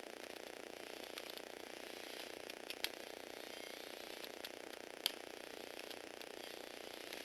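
Small electric motor driving plastic Lego Technic gears in a steady whir, with a few sharp plastic clicks, once near the middle and once about two-thirds through.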